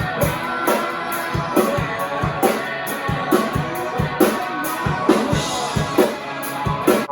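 A rock song with a drum kit keeping a steady beat under electric guitar. It stops abruptly at the very end.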